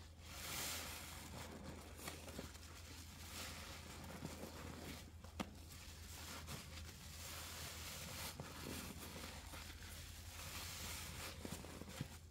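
A soapy sponge being squeezed in Pine-Sol, squelching with crackling, fizzing foam. The squeezes come several times, a few seconds apart, over a steady low hum.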